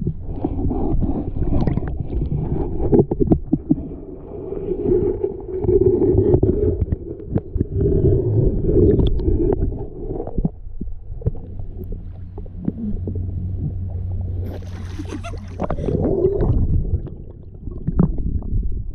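Muffled water noise heard through a submerged camera: sloshing and gurgling with scattered knocks against the housing. A brief higher hiss comes about three quarters of the way through.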